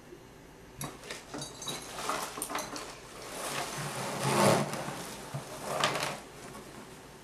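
A few light clicks and knocks from small plastic items being handled, then a plastic bag and a thin fabric costume rustling as they are pulled out of a cauldron. The rustling is loudest about four and a half seconds in, with a second, shorter burst about six seconds in.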